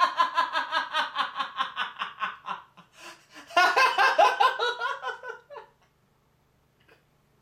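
A man laughing hard in rapid bursts, about five a second, that fade away, then a second, shorter fit of laughter.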